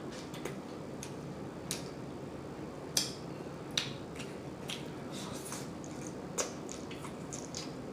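Close-miked chewing of creamy shrimp and chicken alfredo, lips smacking in scattered short wet clicks, one or two a second, the sharpest about 3 seconds in.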